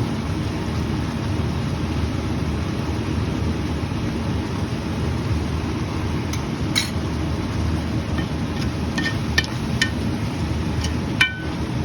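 A steady low rumble throughout, with a few short clicks in the second half and one ringing clink near the end: a metal utensil knocking against cookware.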